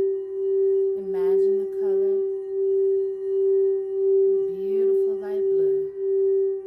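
Singing bowl sounding one sustained steady tone, swelling and fading in loudness about three times every two seconds.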